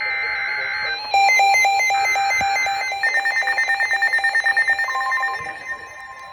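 Several emergency alert receivers sounding their alarm tones at once for a flash flood warning. Steady high beeps come first, then evenly pulsing beeps, then a fast run of rapid beeps. A steady tone near 1 kHz joins about five seconds in.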